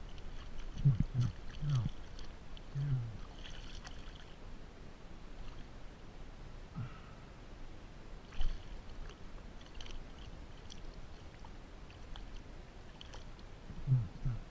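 A small hooked fish splashing at the surface and dripping water as it is lifted beside a kayak, with scattered small splashes and drips. A few short low-pitched sounds stand out about a second in, around three seconds and again near the end.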